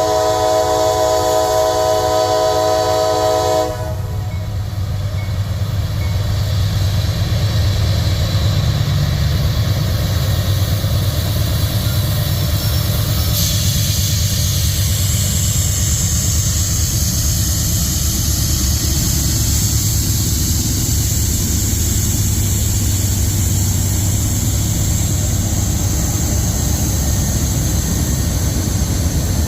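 A diesel locomotive horn sounds a chord for about four seconds, then cuts off. Heavy diesel locomotives run loud and steady underneath, working hard under load as the new CM44AH pulls against two AC6000CWs. About halfway through, a steady high hiss joins the engine sound.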